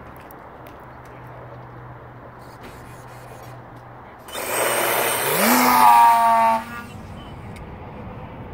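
Geared Jeti Phasor electric motor of a Virage F5B hotliner spinning its 18x23 folding prop at full power for a launch. It comes in about four seconds in as a loud rushing whine, rises in pitch a second later, then cuts off sharply after about two and a half seconds as the power burst ends.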